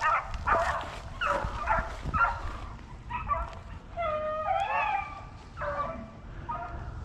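A pack of rabbit hounds baying while running a rabbit: short chop barks at first, then from about three seconds in longer, drawn-out bawls from several dogs at once. It is the sound of the hounds on a hot chase.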